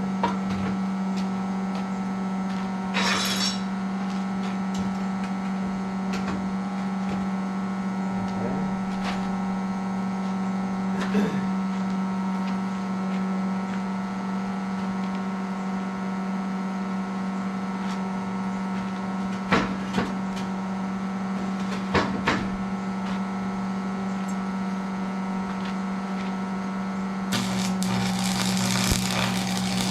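Steady electrical hum with a few scattered clicks and knocks, then, about two seconds before the end, an arc welder strikes up and runs with a steady crackling hiss as metal is welded.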